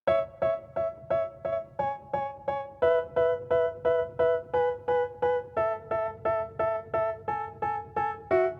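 Background music: a keyboard plays short repeated chords, about three a second, starting suddenly and changing chord every second or two.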